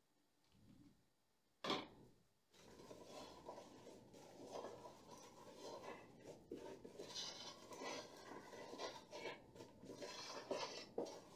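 A hand stirring a dry flour mix in a plastic bowl: steady rustling and scraping with small knocks against the bowl, after one sharp knock about a second and a half in.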